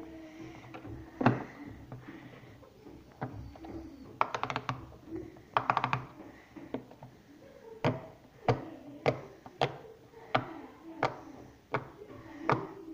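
Silicone pop-it fidget toy bubbles being pushed in by fingers, giving short soft pops. Quick runs of several pops come near the middle, then single pops follow at an even pace, about one every half second to second.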